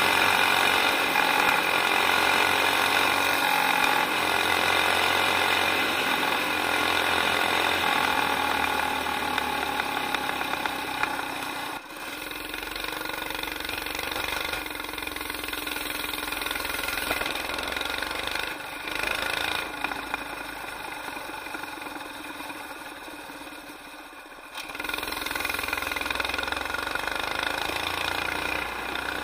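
Go-kart's governor-removed Predator 212cc single-cylinder engine, fitted with a Mikuni VM22 carburettor, running under way. It holds steady high revs at first, the note drops after about twelve seconds, and it picks up again near the end.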